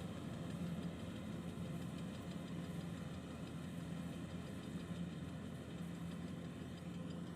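Kubota 105 rice combine harvester's diesel engine running steadily.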